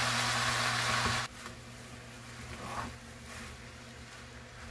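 Food sizzling in a frying pan, a steady hiss that cuts off abruptly about a second in, leaving a much quieter room with a few faint soft knocks.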